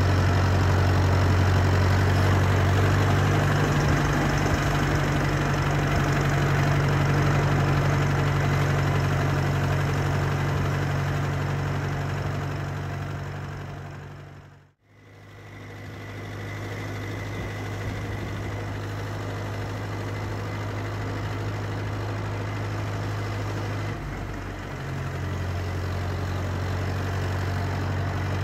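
1942 Silver King tractor's engine running steadily as the tractor is driven, with a slight change in its note a few seconds in and again near the end. The sound fades out briefly about halfway through and comes straight back.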